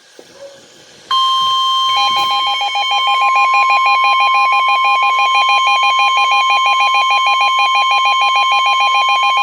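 Emergency alert attention tones from a broadcast severe thunderstorm warning. After about a second of quiet, a loud steady single-pitched tone starts, and a second, rapidly pulsing alarm tone joins it just under a second later. Both sound together without a break.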